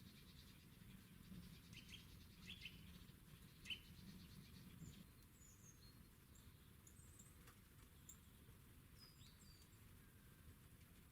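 Faint chirps and short calls of small songbirds: a few quick chirps in the first half, then thinner, higher calls later, over a quiet low background rumble.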